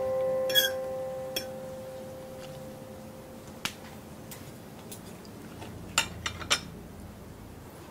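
Metal cutlery clinking against ceramic plates during a meal: a sharp clink about half a second in, a few lighter ones, and three in quick succession near the end. A lingering piano note fades out over the first two seconds.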